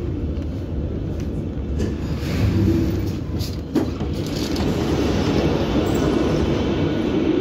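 Kazan Metro train heard from inside the car, running slowly and braking as it pulls into a station: a steady low rumble with one sharp click a little past the middle.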